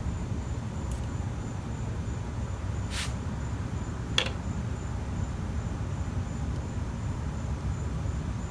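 Two short clicks about a second apart, from small metal parts or tools being handled while the valve keepers are fitted on a small-engine valve stem, over a steady low hum.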